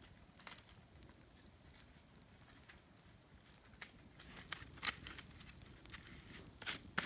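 Wood campfire crackling faintly, with a few sharp pops in the second half.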